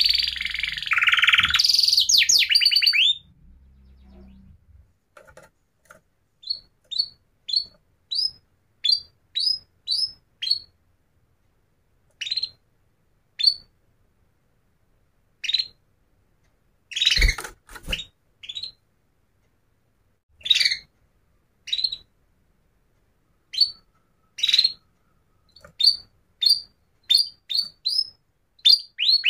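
Bird chirping: a fast, dense run of sweeping high notes for about three seconds, then single short high chirps at irregular intervals. A single knock comes about 17 seconds in.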